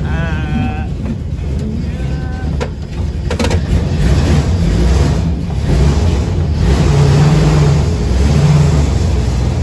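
WW2 DUKW amphibious truck's GMC straight-six engine running, growing louder about four seconds in. A couple of sharp clicks sound around three seconds in.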